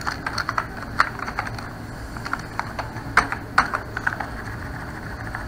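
Typing on a computer keyboard: irregular, separate keystrokes at a few per second, a few of them louder than the rest.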